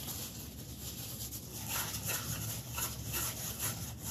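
A paper towel rubbing and wiping across a 3D-printed plastic enclosure: soft, irregular scuffing strokes.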